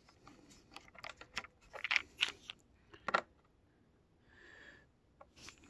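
A hand screwdriver turning a screw out of the plastic housing of a Cleartrak/Workhorse upright vacuum: a run of small, irregular clicks and ticks, with a brief faint rasp about four and a half seconds in.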